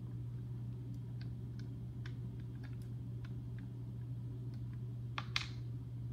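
Scattered light plastic clicks and taps as hands fit a small piece onto a plastic toy dinosaur, with one sharper click about five seconds in. A steady low hum runs underneath.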